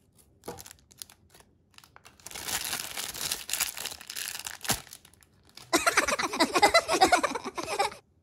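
Clear plastic cling wrap crinkling and rustling as it is peeled off a head of cabbage by hand. It comes in two stretches: a softer rustle, then about two seconds of denser crackling with squeaky rubbing near the end.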